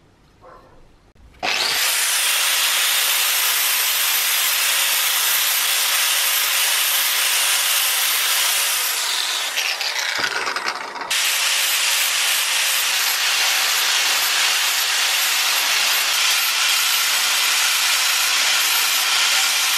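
Angle grinder with an abrasive disc grinding the steel of an old axe head, a loud continuous hiss of disc on metal. It starts about a second and a half in, eases off for a moment around ten seconds in, then bites again.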